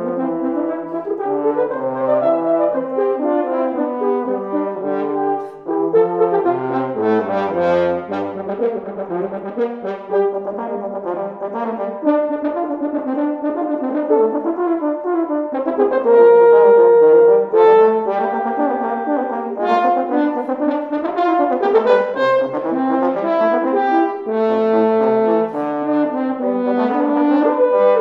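Two Finke French horns playing a lively duet, with many quick notes in interweaving lines. A long, loud held high note sounds a little past halfway through.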